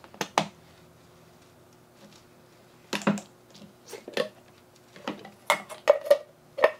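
Short, sharp hard-plastic clicks and knocks from a plastic microwave egg cooker-peeler as its locking lid is twisted open and lifted off: two clicks at the start, a cluster about three seconds in, and several more near the end.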